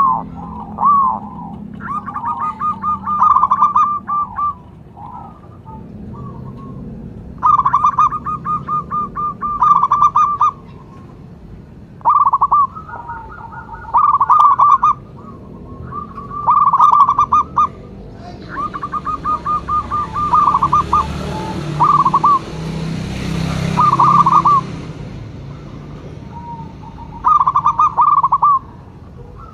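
Zebra doves (perkutut) cooing: short phrases of rapid, stuttering coos repeated every couple of seconds. A rushing hiss swells up and fades in the middle, under a low steady hum.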